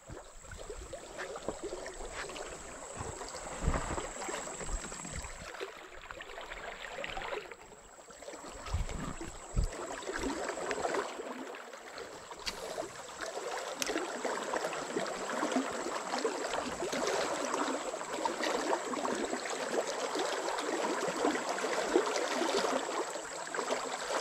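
Fast-flowing river water rushing and gurgling past the bank, a continuous noisy wash that grows somewhat louder over the second half.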